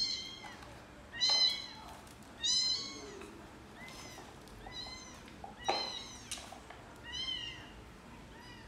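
Very young kittens mewing repeatedly: thin, high-pitched cries, each rising and falling in pitch, about one a second.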